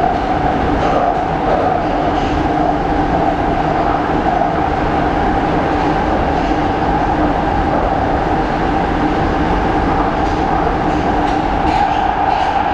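Interior of a Soviet-built Budapest M2 metro car running at speed through the tunnel: a steady rumble of wheels on rail with a steady whine on top, and a few faint rail clicks near the end.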